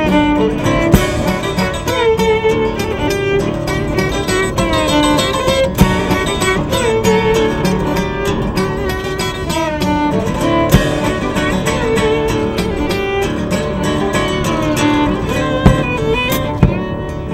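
Violin playing a melody over a strummed acoustic guitar, with a sharp accent about every five seconds.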